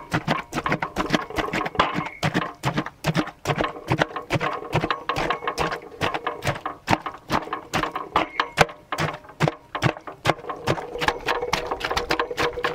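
Wooden pestles pounding grapes in a large metal pot, a rapid, irregular run of knocks as the grapes are crushed for juice.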